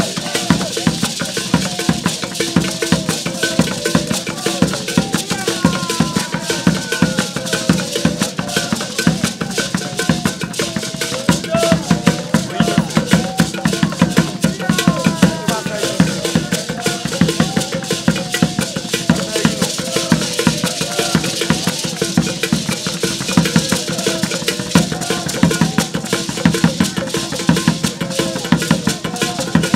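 Traditional Ghanaian drumming on hand frame drums with rapid shaking of handheld gourd rattles, in a fast steady rhythm, with voices singing along.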